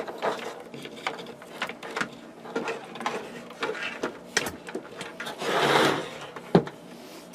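Handling noise of wiring being fed through a hole in a switch box: scattered clicks and rustles, a longer scraping rustle a little past halfway, then one sharp click, over a faint steady hum.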